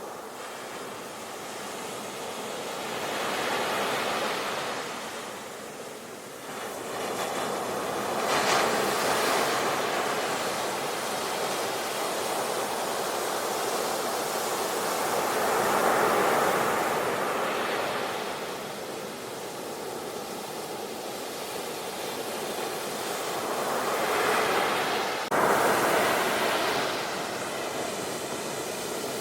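Sea waves washing ashore, the surf swelling and falling back every several seconds. Late on the sound jumps abruptly louder.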